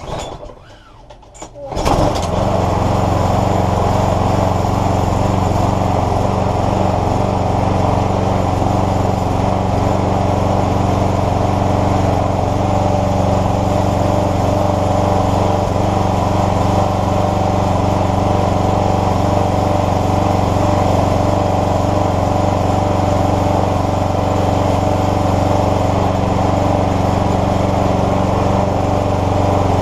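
Hayter Hawk push mower's Briggs & Stratton petrol engine catching on a pull-start about two seconds in, then running steadily. Its carburettor has been freshly cleaned and fitted with a new needle seat to cure a fuel leak.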